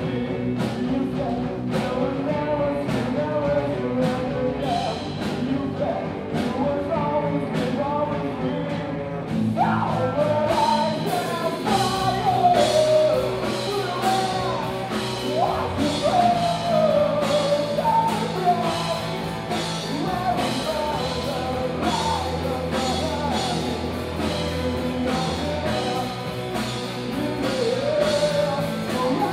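Live rock band playing: electric guitars and a drum kit keeping a steady beat of about two strokes a second, with a singer's voice through the PA that comes in strongly about a third of the way in.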